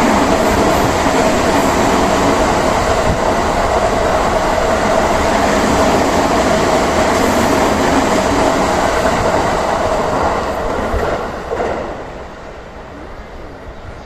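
The Sunrise Izumo/Seto sleeper train, a 285-series electric multiple unit, passing with loud rushing wheel-on-rail noise and a steady hum. The sound dies down about twelve seconds in.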